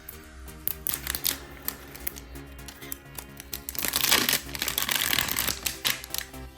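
Background music with packaging being handled: clicks and plastic wrap crinkling, loudest from about four to five and a half seconds in.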